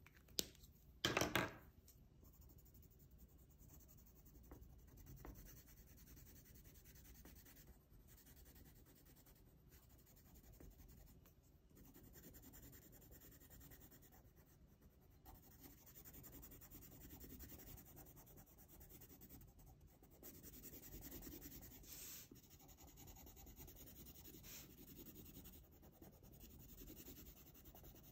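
Faint scratching of a coloured pencil on paper as it shades in a drawing, in uneven strokes. A sharp click and a brief louder clatter come in the first second or two.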